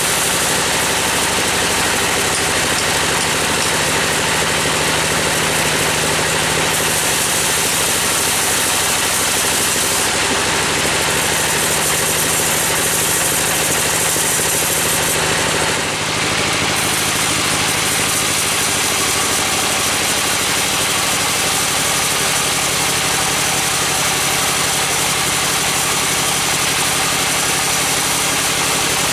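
Engine-powered wood saw running steadily throughout, with a brief dip about halfway through.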